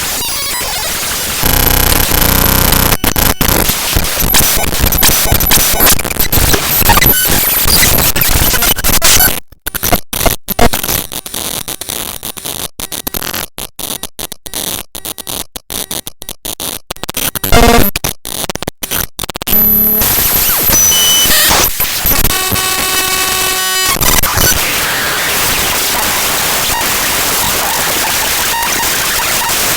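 The raw binary data of the avcodec.dll library file played back directly as audio: loud, harsh digital noise and static. Around the middle it turns quieter and crackly with many dropouts, and a little later a brief buzzing tone comes through before the hiss returns.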